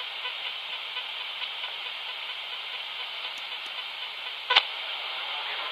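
Magnum 1012 handheld HF transceiver giving steady receiver static hiss as it is tuned across empty frequencies on the 11-metre band, with one sharp crackle about four and a half seconds in.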